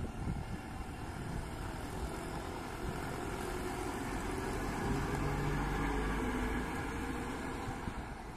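Diesel engine of an Eicher-built state transport bus running as the bus moves past close by, its low rumble swelling to its loudest about five seconds in and easing off near the end.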